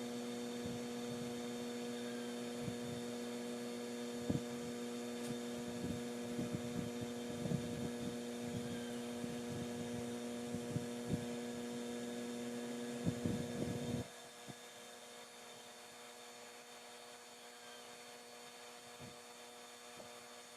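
Steady electrical hum with scattered faint clicks and taps. The hum cuts off suddenly about fourteen seconds in, leaving only faint hiss.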